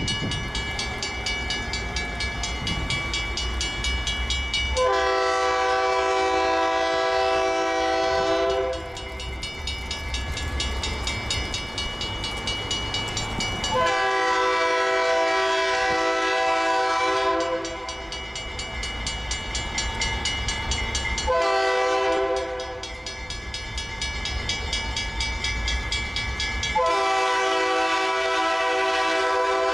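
Diesel locomotive's air horn sounding the grade-crossing signal as it approaches: two long blasts, a short one, then a final long one still sounding at the end, over the low rumble of the engine.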